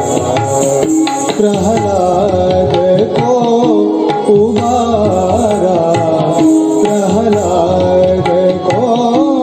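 Kathak dance accompaniment in Hindustani style: tabla playing a steady rhythmic cycle under a wavering, ornamented melodic line.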